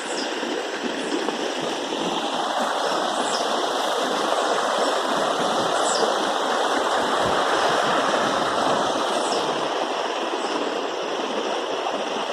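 Steady rush of running water that covers the birdsong, with faint short high bird calls every two or three seconds above it.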